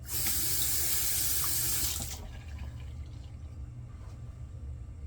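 Water running from a sink tap for about two seconds, then shut off, leaving a low steady hum.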